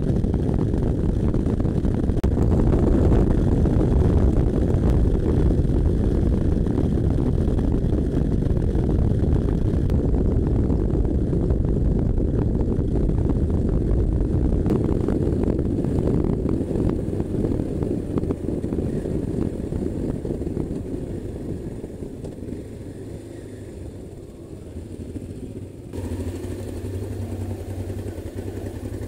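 Adventure motorcycle running at steady road speed, engine and wind heard together from the bike itself. The sound eases off in the second half, and near the end a motorcycle engine idles steadily.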